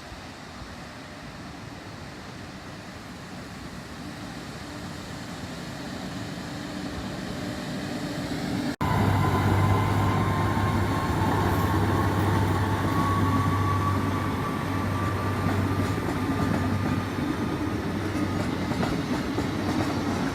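Train approaching and passing, its noise growing louder over about nine seconds. After a brief break the train is loud and steady, with a low hum and a whine that slowly rises in pitch.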